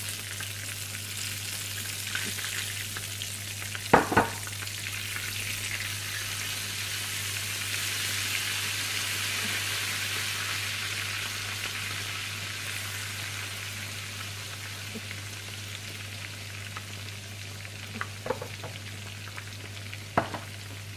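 Hot oil sizzling hard in a frying pan just after a little water has gone into the tempering of fried garlic, curry leaves and red chillies: the water is boiling off in the oil. The sizzle swells through the middle and slowly eases, with two sharp knocks about four seconds in and a few more near the end as it is stirred.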